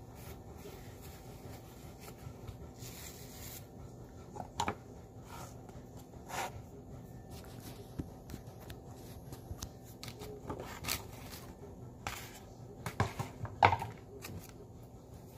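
Hands handling food in a kitchen: soft rubbing and rustling of a paper towel and a plastic bowl, with scattered taps and knocks, the loudest a quick cluster of knocks near the end, over a faint steady hum.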